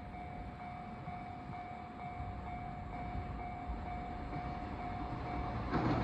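Japanese level-crossing warning alarm ringing, a quick, evenly repeated electronic ding. Near the end the rumble of an approaching train rises underneath it.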